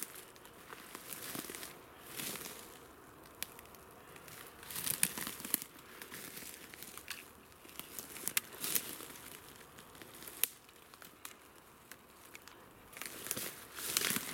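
Footsteps through dry leaf litter and fallen twigs on a forest floor: irregular crackling and rustling that comes in clusters, louder about five seconds in and again near the end.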